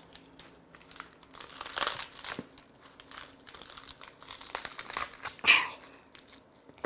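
Romaine lettuce leaves being torn and broken apart by hand: irregular rustling and crackling, loudest about five and a half seconds in.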